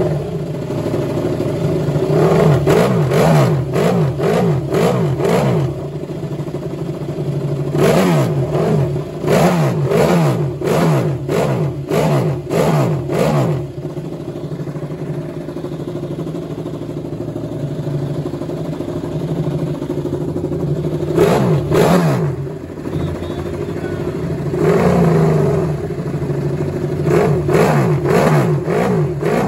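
Ducati Desmosedici MotoGP bike's V4 engine warming up on the stand: it runs at a fast idle and is blipped repeatedly in short, sharp revs that rise and fall quickly. There are runs of quick blips in the first half, a steadier idle stretch in the middle, then more blips near the end.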